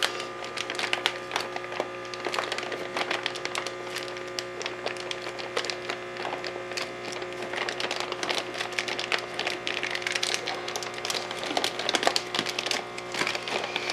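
Thin plastic fish-transport bag crinkling and crackling in quick irregular ticks as hands twist and work its tied neck open, over a steady low hum.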